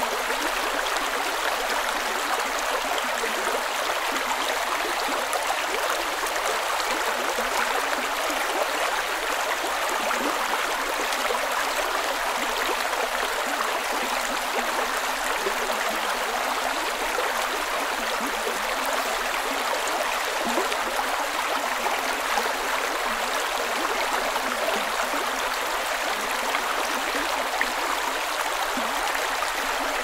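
Creek water flowing over rocks with gurgles, a steady, even rush.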